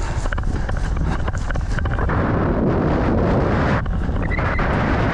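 Running footsteps on grass with wind buffeting the body-worn action camera's microphone in a steady low rumble. A few sharp clicks come in the first two seconds.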